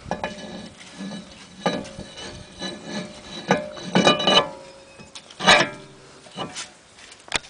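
Cast-iron rear brake disc being slid and turned onto the wheel hub by hand, metal scraping and clinking against the hub and studs, with short metallic rings. The loudest clink comes about five and a half seconds in.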